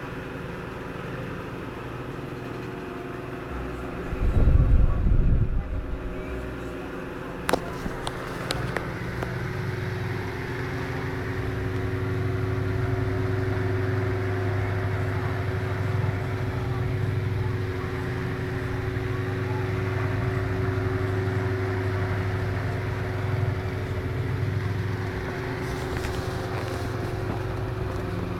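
Restored late-1920s Verity Orbit oscillating desk fan running after rewiring, its motor humming steadily, the hum growing louder about ten seconds in. A low thump comes about four seconds in and a sharp click about seven seconds in.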